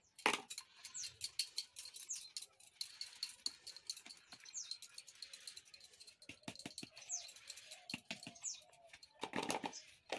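Flour being sifted through a hand sieve into a steel plate: quick irregular taps and a light rasping as the sieve is shaken and knocked by hand. A bird chirps briefly several times in the background.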